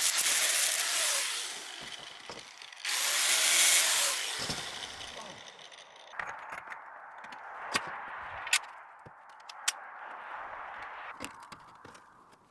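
Angle grinder stripping mill scale off steel angle bar, with two loud grinding passes in the first few seconds. The rest is quieter rasping on the metal with scattered sharp clicks.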